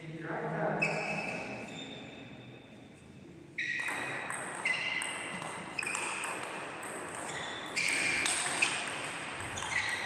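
Table tennis ball clicking off bats and table in a rally, sharp hits about a second apart from about three and a half seconds in.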